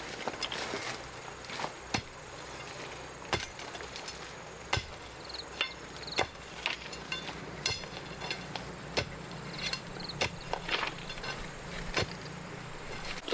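Repeated sharp knocks or strikes, roughly one every second and a half, over a faint steady low hum.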